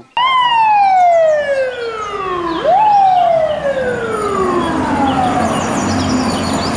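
Fire truck siren wailing: the pitch jumps up quickly and slides slowly down, twice, over street traffic noise.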